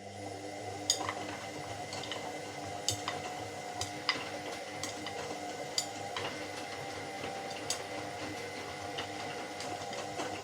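Washing machine running a wash cycle: water sloshing in the turning drum over a steady hum, with irregular sharp clicks.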